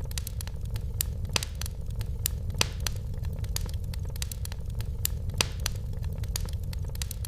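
Fireplace fire crackling: irregular sharp pops, a few of them louder than the rest, over a steady low rumble.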